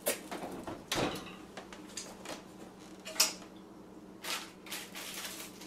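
Kitchen oven being closed up: metal rattles of the oven rack and the oven door shutting with a knock about a second in, then a few lighter clicks and knocks, over a faint steady hum.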